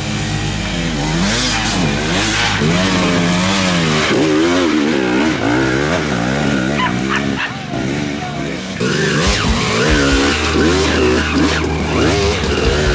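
Dirt bike engines revving up and down in short, repeated bursts as the bikes claw up a steep, rutted dirt climb.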